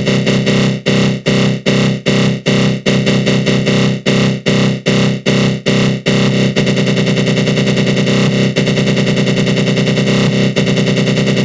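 Synthesized 'attack growl' sound effect: a harsh, buzzing synth growl made with the GMS synth in FL Studio Mobile through a flanger. It stutters in short pulses about two or three times a second, then about six seconds in turns into a continuous growl with a fast flutter.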